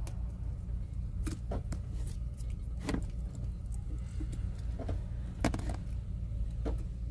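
Scattered light clicks and small rattles as a toggle switch and its wire connectors are handled and the terminals pulled off, over a steady low hum.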